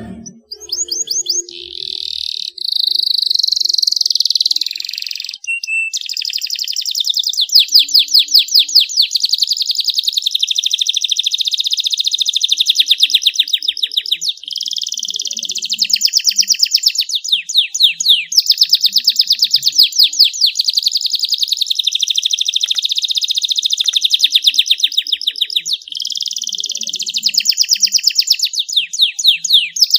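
Male canary singing a long, unbroken, high-pitched song made mostly of rapid trills and rolls of quickly repeated notes, broken only by a few short pauses. This is the full, vigorous song that keepers call 'gacor'.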